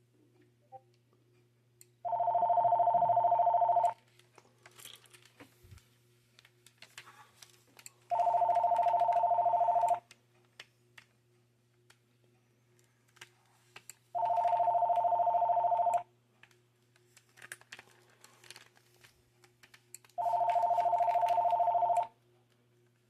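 VTech CS5249 DECT 6.0 phone ringing with an incoming call. Its electronic two-tone warbling ring sounds four times, each ring about two seconds long and repeating every six seconds.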